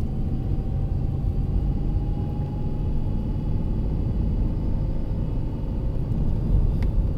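Steady low rumble of a car's engine and tyres, heard from inside the cabin while driving, with a faint whine that rises slowly in pitch.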